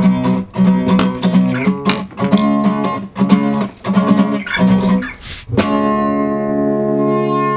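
Background music: a guitar strummed in a steady rhythm, then a final chord left ringing and slowly fading for the last two seconds.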